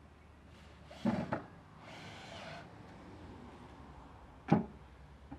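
Work knocks on a building site: a couple of heavy knocks about a second in, a short scraping hiss, then one sharp, louder knock near the end.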